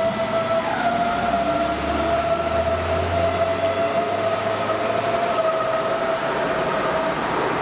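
Munich S-Bahn class 423 electric multiple unit pulling away: a steady high electric whine from its traction equipment with a low rumble underneath, the whine stopping near the end. Heavy rain hisses throughout.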